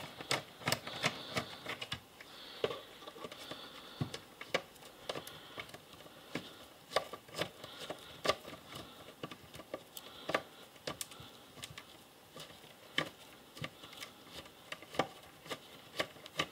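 Ratchet driver clicking in short irregular runs, a few sharp clicks a second, as tri-wing screws are backed out of a plastic battery charger case.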